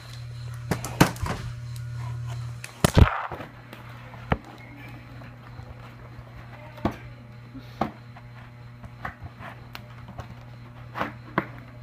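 Handling noise: scattered knocks and taps, with one loud knock about three seconds in, over a low steady hum that is louder for the first couple of seconds.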